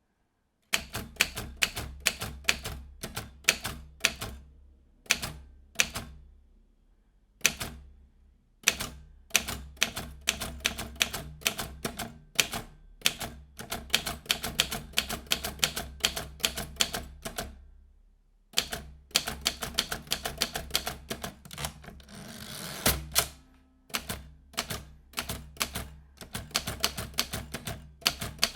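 Vintage manual typewriter being typed on: bursts of sharp key strikes in quick irregular runs, with short pauses between them. Near the end there is a longer rasping sweep that ends in a heavy thump.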